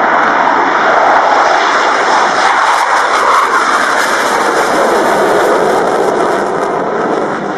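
AIDC F-CK-1 Ching-kuo jet fighter with twin turbofans taking off: loud, steady jet noise as it leaves the runway and climbs. A crackling rasp comes in the middle, and the noise eases slightly near the end as it pulls away.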